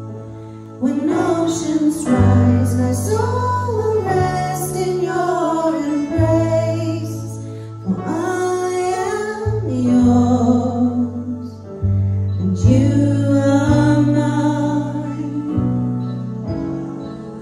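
Women singing a slow worship song into microphones, over held chords and a bass line that changes note every couple of seconds.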